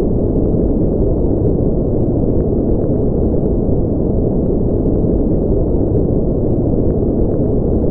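Steady, deep, muffled rumbling noise that stays constant throughout, with no distinct events in it.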